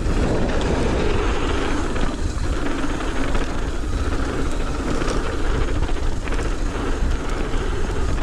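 Wind rushing over the microphone of a rider's own camera, with the steady rumble and rattle of a mountain bike rolling down a dirt trail.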